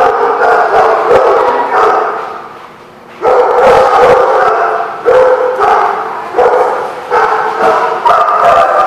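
Dogs barking repeatedly in loud runs of pitched barks, with a short lull about a third of the way in before the barking picks up again.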